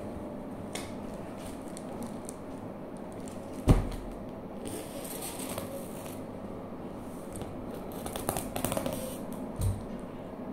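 Scissors cutting into the plastic shrink-wrap around a stack of workbooks, then hands crinkling and tearing the plastic. A thud about four seconds in is the loudest sound, with a smaller thump near the end.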